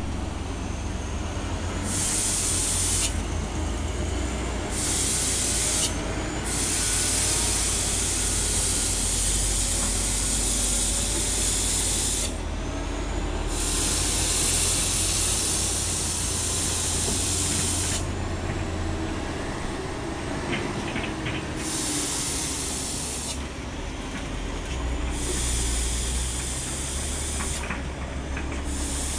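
Diesel engine of a loaded three-axle Hino dump truck running under load as it climbs a dirt track, a low steady rumble with a wavering engine note. A loud hiss comes and goes over it in spells of a few seconds.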